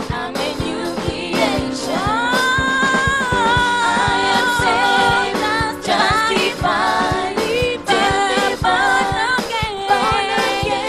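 Gospel singers singing a praise song over a band with a steady drum beat, one voice rising into a long held note about two seconds in.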